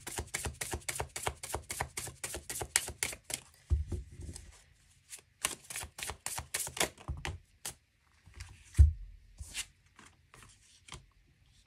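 A tarot deck shuffled by hand: a fast run of card flicks, about six a second, for the first three or four seconds, then slower, scattered flicks. Two dull thuds come about four and nine seconds in, the second the loudest sound.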